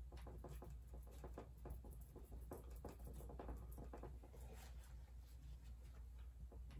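Faint, irregular soft taps of a small paintbrush dabbing paint onto a canvas, over a low steady hum.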